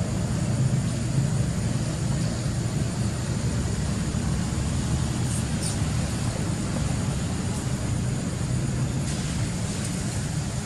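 Steady low rumble of outdoor background noise, with a faint high steady drone over it and a few faint short chirps about halfway through.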